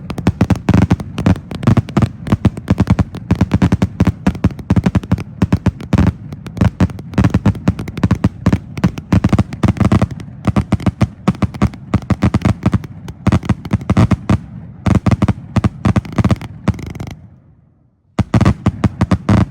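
Two all-salute firework cakes firing together, one of them the 100-shot 'Ice' cake: a rapid, dense string of loud salute bangs, several a second. They thin out and stop about 17 seconds in, then a last short flurry of bangs comes near the end.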